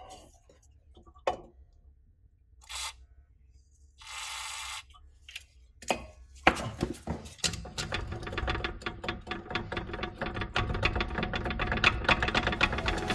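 A few scattered knocks and a short hiss lasting under a second, then, from about halfway, a fast run of clicks with steady tones beneath that grows louder as music comes in.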